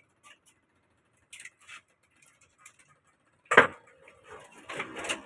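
Work noises on a window air conditioner: a few light clicks, then a sharp knock about three and a half seconds in with a brief ringing tone, and a run of rattling knocks near the end.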